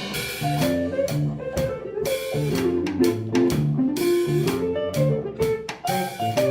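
A live instrumental band playing a jazz-funk medley arrangement: a moving melodic line over drum kit, with regular drum hits.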